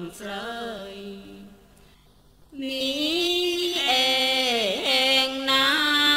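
A monk's solo voice chanting a Buddhist recitation in long, held, melodic notes. It breaks off about a second and a half in and resumes about a second later.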